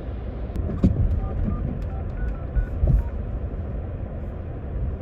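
Steady low rumble of a car interior, with a few short phone keypad tones as a number is dialled and two dull thumps, about a second in and near three seconds.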